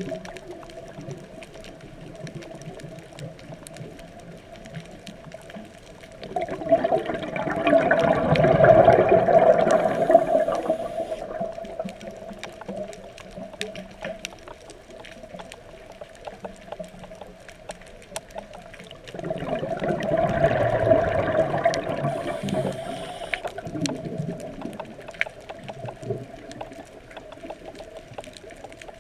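Scuba diver's regulator exhaling underwater: two long rushes of bubbles, one about a quarter of the way in and another about two-thirds through, each lasting a few seconds. Between them a steady faint tone and scattered small clicks continue.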